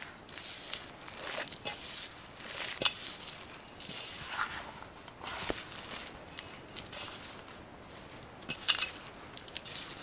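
Fingers rubbing and pressing a crumbly biscuit-crumb, flour and melted-butter pie crust mixture in a metal pie pan: a gritty crunching rustle with a few sharp clicks, the loudest about three seconds in and another cluster near the end.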